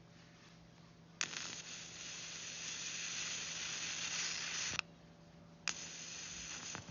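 Electric arc lighter firing: a click, then the arc's steady hissing buzz held for about three and a half seconds before cutting off sharply, and a second, shorter burst starting near the end.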